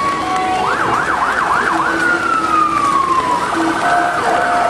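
Electronic emergency-vehicle siren cycling through its patterns: about three quick up-and-down yelps, then a long slow falling wail, then a fast warble about three and a half seconds in.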